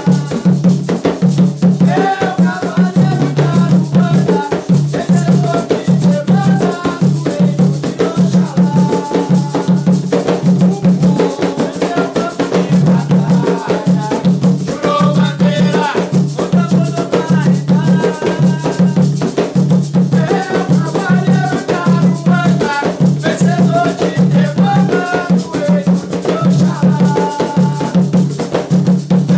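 Two male voices singing an Umbanda ponto to Ogum in Portuguese, accompanied by two atabaques, tall wooden hand drums struck with bare palms in a steady, driving rhythm.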